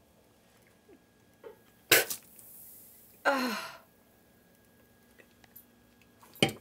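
A woman splutters a mouthful of soda out, with a sudden sharp burst about two seconds in, then a short gagging groan that falls in pitch about a second later. A brief sharp sound follows near the end.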